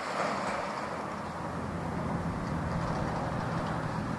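A motor engine running steadily, a low hum that grows a little stronger about two seconds in, over open-air background noise.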